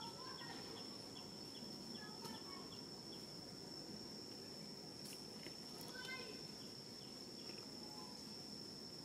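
Faint steady high-pitched insect drone, such as crickets, with a few short faint chirps over a low background hiss.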